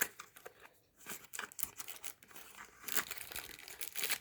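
Packaging crinkling and crackling in irregular bursts as a keyboard's accessories are unwrapped. There is a sharp click at the start, and the crackling grows denser about three seconds in.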